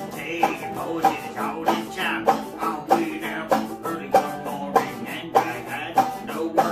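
Banjo and hollow-body guitar playing together in a steady rhythm, with a sharp accent on each beat a little under twice a second.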